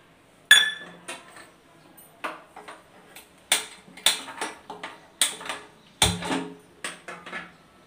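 A metal kadai knocking and clanking against the gas stove's burner grate as it is shifted into place: about a dozen irregular sharp knocks, some with a brief metallic ring, and a heavier, lower knock about six seconds in.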